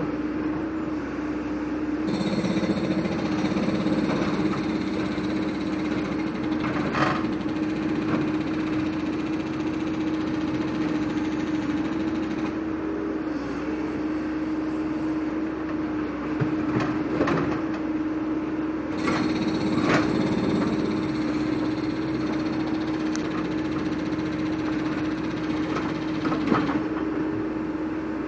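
Caterpillar 416C backhoe loader's diesel engine running steadily while the backhoe digs, with a higher whine from the hydraulics under load in two long stretches. Several sharp knocks of the bucket striking and lifting broken concrete slabs.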